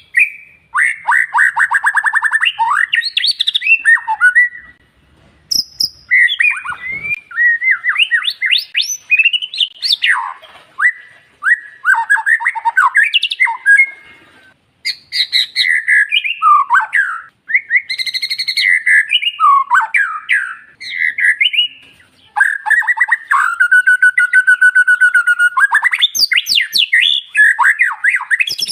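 White-rumped shama (murai batu) singing: a loud, varied run of clear whistled phrases, rapid trills and chattering notes, broken by a few short pauses.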